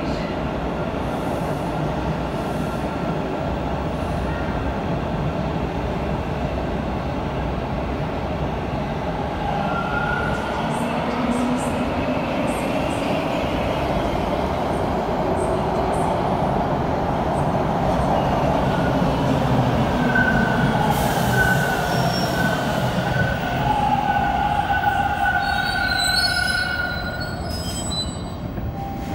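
TTC T1 subway cars running along the platform: first a train passing through without stopping, then the next train pulling in. The next train grows louder as it comes alongside, squeals in several high tones as it slows, and goes quieter as it comes to a stop near the end.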